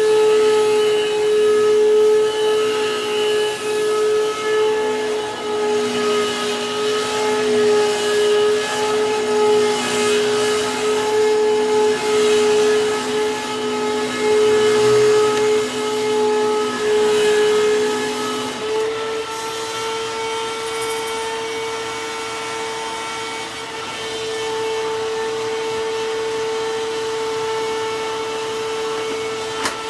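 Hoover WindTunnel bagless vacuum (model U8351-900) running with a steady high whine. About two-thirds of the way through, a lower tone drops out and the whine steps up slightly. The motor sounds awful dry and not healthy at all, which the owner takes for a motor in poor shape.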